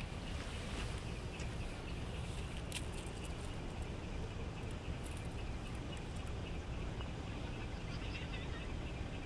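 Outdoor ambience: a steady low rumble under continuous high chirping, with a few sharp clicks.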